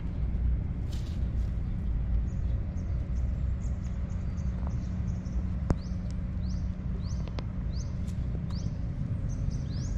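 Outdoor ambience: a steady low rumble under a bird's short, rising chirps, repeated about once or twice a second and coming faster toward the end. There are a couple of sharp clicks midway.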